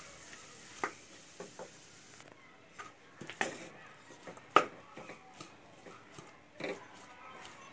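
A cooking utensil knocking and scraping against a wok while chopped vegetables are stir-fried, in scattered clicks and scrapes with one sharper knock about four and a half seconds in.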